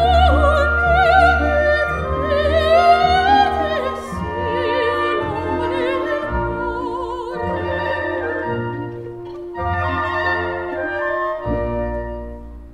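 Operatic singing with orchestral accompaniment: a voice with wide vibrato over sustained string and low bass notes, dying away at the end.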